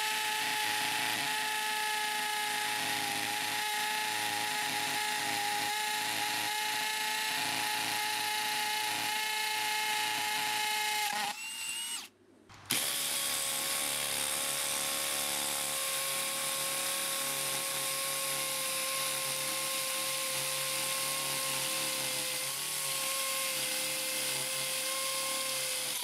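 Two cordless combi drills, a Bosch GSB 18V-150 C and a Makita 40V, hammer-drilling into concrete one after the other. The first runs steadily for about eleven seconds and stops briefly. The second then runs to the end at a slightly higher pitch.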